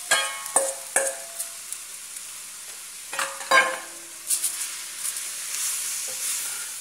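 Shredded chicken sizzling as it is tipped into a hot stainless steel pot of sautéed onion and garlic, with a steady hiss of frying. Metal knocks against the pot ring out a few times in the first second and once loudest about three and a half seconds in, then a spoon stirs and scrapes the chicken in the pan.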